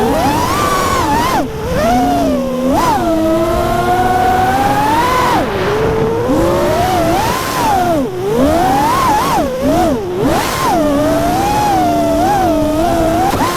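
FPV racing quadcopter's brushless motors whining, the pitch sweeping up and down constantly with the throttle during freestyle flying, with a few brief drops where the throttle is cut.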